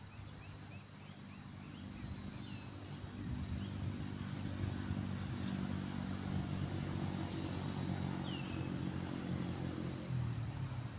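A motor vehicle's engine hum swells over a couple of seconds, holds, then eases off near the end, like a vehicle passing. Under it runs a steady high insect drone, with a few short bird chirps in the first two seconds and one falling chirp later.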